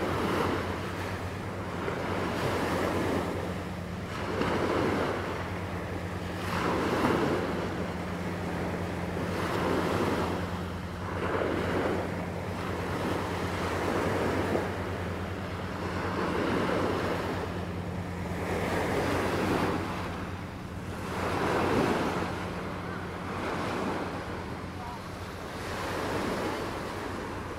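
Small sea waves breaking and washing up on a beach, surging every two to three seconds, over a steady low hum.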